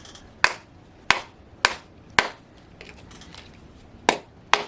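A mallet striking a model glow engine's front housing, six sharp knocks: four in quick succession about half a second apart, a pause, then two more near the end. This is tapping to loosen a stuck front housing from the crankcase.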